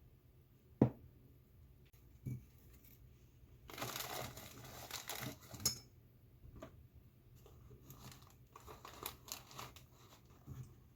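Dried loquat leaves being crinkled and torn by hand, in two spells of dry crackling. A sharp knock comes about a second in and is the loudest sound, with lighter knocks a little later and near the end.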